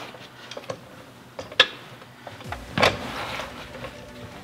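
Floor jack raising the rear suspension to line up the strut's bolt hole, with scattered metal clicks and knocks: a sharp click about a second and a half in and a clunk near three seconds.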